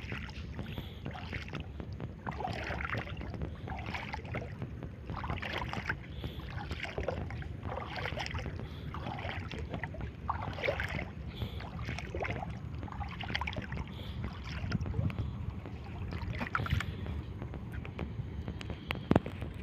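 Someone wading through shallow seawater, a slosh of water with each step about every second and a bit, over a steady low rumble. There is a sharp knock near the end.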